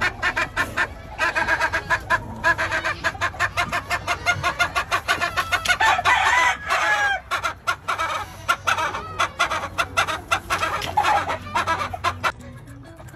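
Chickens clucking rapidly and continuously, with a rooster crowing among them. The calling drops off near the end.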